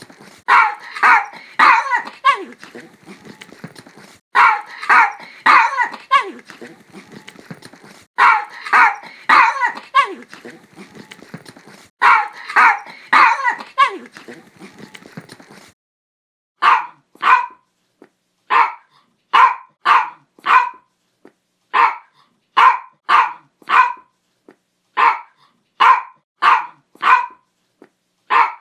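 A dog barking repeatedly in sharp barks. For the first half the barks come in quick runs of three or four; about halfway through they change to single and paired barks with silent gaps between them.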